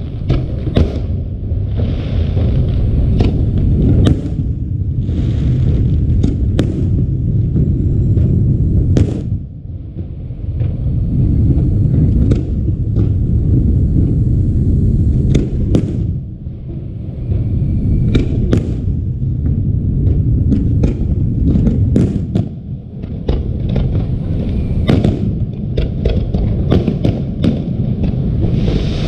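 Fireworks display: a dense, continuous low rumble of shell bursts, studded with many sharp cracks and crackles and bursts of hiss, easing briefly three times before building again.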